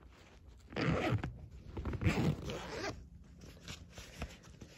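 Zipper on a small fabric carry case being zipped closed around the device inside: two long rasping pulls, about a second apart, then a few short rasps near the end.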